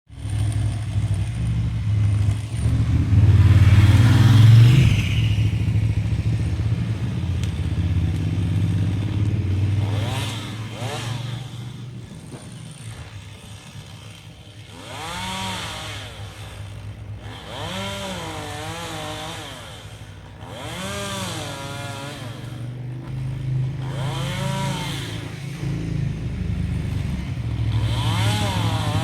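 Gasoline chainsaw engine running, revved up and down repeatedly, over a steady low engine hum. It is loudest a few seconds in.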